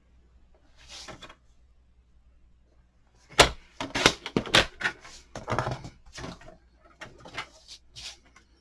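Cardstock and craft tools handled on a desk: a soft paper swish, then a quick run of sharp clicks and taps with rustling between them.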